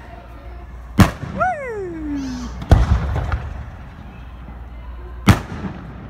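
Aerial firework shells bursting: three sharp bangs, the first about a second in, the second near the middle and the last near the end.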